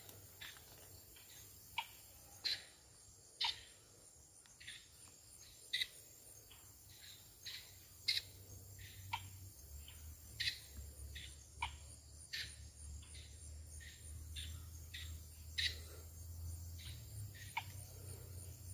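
Short, sharp, high-pitched chirps at irregular intervals of about one a second, over a steady, very high insect trill and a low rumble: a chorus of insects and birds at a stream bank.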